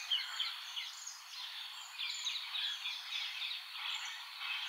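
Outdoor ambience of small birds chirping: many short, high-pitched calls scattered over a faint steady hiss.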